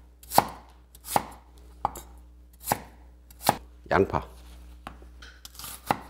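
Chinese cleaver chopping on an end-grain wooden cutting board, dicing a potato and then an onion. The sharp knife strikes come one at a time, about one every three quarters of a second, with a few more near the end.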